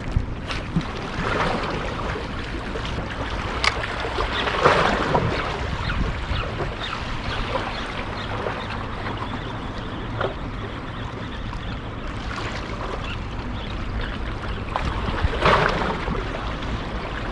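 Wind rumbling on the microphone and seawater lapping against the harbour wall, with a few louder sloshes of water and a couple of faint clicks.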